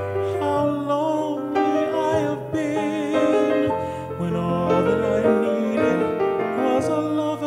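A male singer performing a song with piano accompaniment, the voice holding notes with vibrato over the piano.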